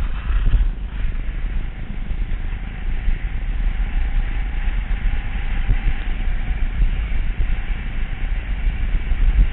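Wind buffeting a helmet-mounted GoPro's microphone during a downhill ski run, a heavy low rumble, with the hiss of skis sliding over hard, wind-packed snow.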